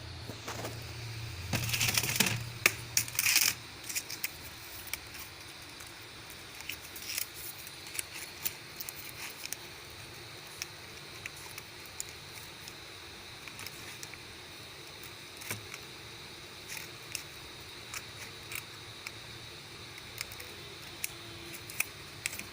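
Small clicks and rattles of objects being handled, with a louder stretch of clattering and rustling about two seconds in, over a faint steady high-pitched tone.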